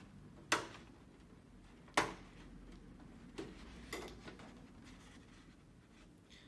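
Sharp clicks of a metal hand tool against the LED backlight strips and metal back panel of a TV: two louder ones about a second and a half apart, then two softer ones a little later.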